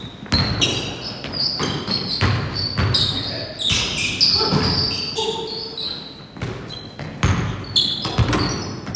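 Basketball being dribbled on a hardwood gym floor, repeated bounces ringing in the large hall, mixed with short high-pitched squeaks of sneakers on the court.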